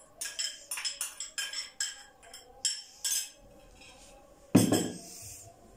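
A metal spoon clinking and scraping against a small glass bowl in a quick irregular run of clinks as the dissolved yeast is scraped out into a stainless-steel mixing bowl, then one louder knock about four and a half seconds in.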